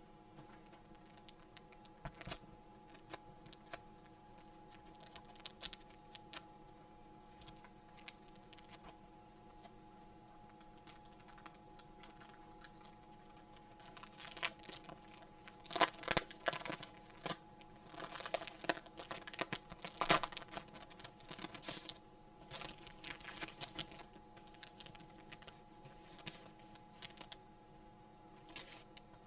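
Small objects being handled: irregular light clicks, taps and crinkling, busiest through the middle, over a steady faint hum.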